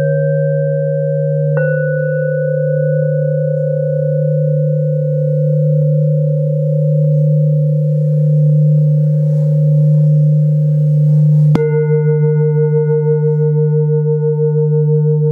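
Tibetan singing bowls struck with a mallet and left ringing over a steady deep hum. One bowl is struck about a second and a half in, and another, louder, near the end, after which the tone wavers in a slow pulsing beat.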